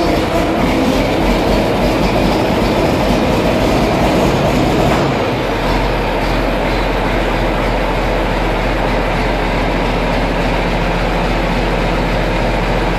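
John Deere 4640 tractor's six-cylinder turbocharged diesel running loudly just after being started, with a steady low rumble. About five seconds in the sound settles to a smoother, lower note.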